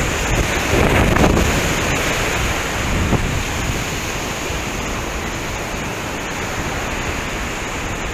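Surf washing in over a shallow sandy beach, with steady wind buffeting the microphone.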